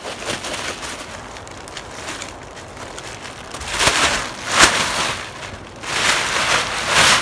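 Plastic garbage bag rustling and crinkling as it is unfolded and shaken open, with louder flapping swishes about four seconds in and again near the end.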